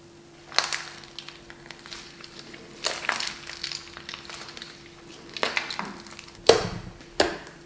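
Slime squeezed and stretched between the hands: about five wet, crackling squelches a second or two apart, the last two the loudest. A faint steady hum runs underneath.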